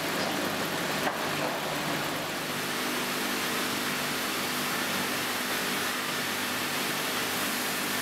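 Sawmill line machinery running steadily: a constant mechanical hum and hiss from motors and roller conveyors, with one short knock about a second in.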